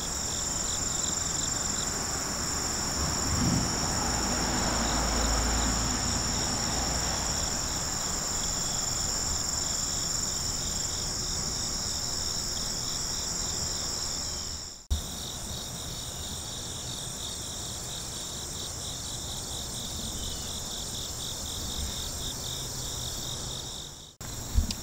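A chorus of insects singing steadily in a high trill, with a faster pulsing trill a little lower beneath it, and a low rumble in the first few seconds. The sound breaks off for an instant about 15 seconds in and again near the end.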